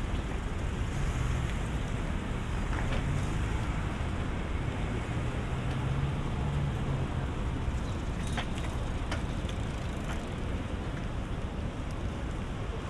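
Steady city street noise: traffic rumble under a continuous hiss, with a few sharp clicks around eight to nine seconds in.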